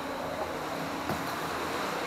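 Steady wash of pool water sloshing and lapping as kayaks are paddled in an indoor swimming pool, with the echoing hiss of the pool hall.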